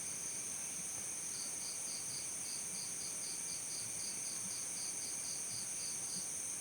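Crickets chirping: a steady, high-pitched insect trill runs throughout. Over it one cricket chirps in an even pulse of about four chirps a second, starting about a second in and stopping shortly before the end.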